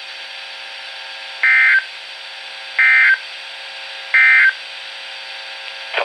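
NOAA Weather Radio end-of-message signal through a weather alert radio's speaker: three short bursts of SAME digital data tones, each about a third of a second long and spaced about a second and a half apart, over steady radio hiss. The bursts mark the end of the tornado warning broadcast.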